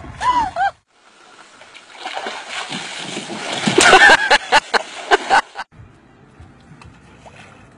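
Water splashing and sloshing as a dog and a person thrash about in the water, building up and loudest about four seconds in, with a voice calling out over it. A short burst of voice comes before it, and it stops abruptly, leaving only quiet background noise.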